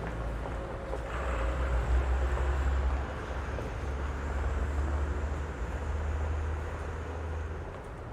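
Street traffic: a motor vehicle's low engine rumble going by, loudest a second or two in and easing off near the end, over general street noise.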